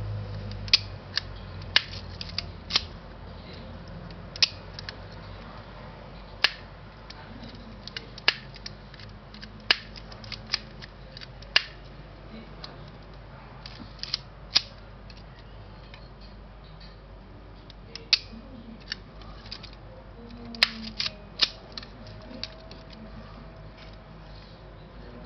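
About twenty sharp mechanical clicks at irregular intervals, some in quick pairs, from a Yashica Electro 35 CC rangefinder camera being worked by hand, with light handling noise between them and a quieter stretch a little past the middle.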